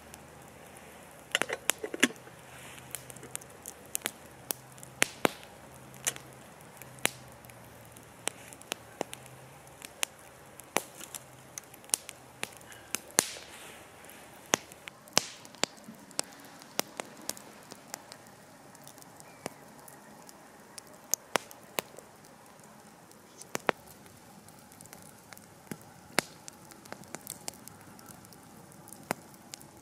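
Wood campfire crackling, with frequent irregular sharp pops.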